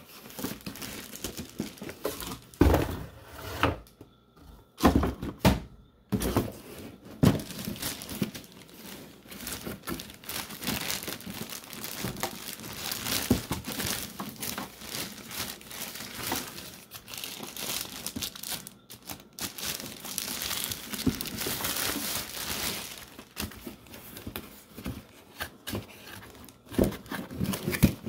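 Clear plastic bag crinkling and rustling as a boxed product is handled and lifted out of its cardboard box, with a few louder knocks of the box and product in the first several seconds.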